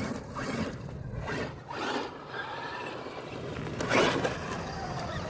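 Traxxas X-Maxx electric RC monster truck driving in short throttle bursts. Its brushless motor and drivetrain give a rasping whine that rises and falls, and its tyres scrabble over dirt and concrete, with a louder burst about four seconds in.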